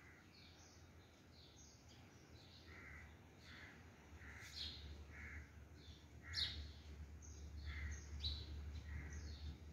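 Birds chirping and calling in the trees: many short, repeated calls, faint, over a low steady rumble.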